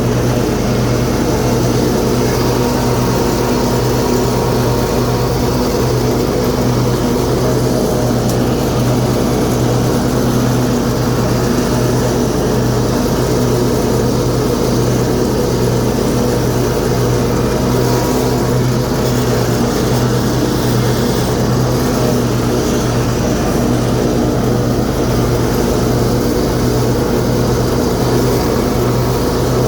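Cub Cadet RZT 50 zero-turn riding mower's 23 hp Kohler V-twin engine running steadily under load while mowing with the deck blades engaged.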